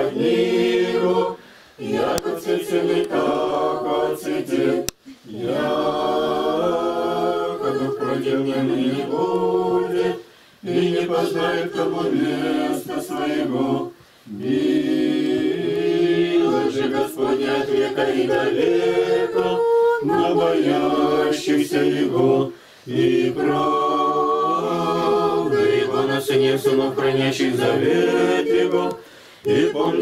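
Congregation of men and women singing an Orthodox liturgical chant a cappella, in sustained phrases separated by brief pauses for breath.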